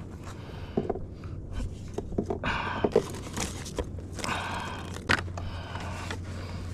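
Irregular scrapes, knocks and rustling from handling a freshly landed sand bass on the kayak while it is measured, over a low steady hum.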